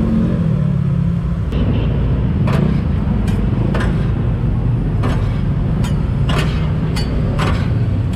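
Metal spatulas clacking and scraping on a flat-top steel griddle as chopped pork sisig is turned, about two strikes a second from about a second and a half in, over a steady low rumble of street traffic.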